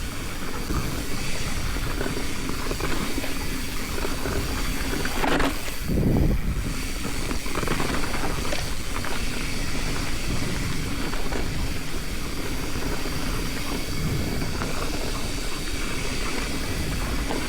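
Mountain bike descending a dirt singletrack: a steady rush of wind on the microphone over tyre noise and rattling from the bike, with a couple of louder bumps about five to six seconds in.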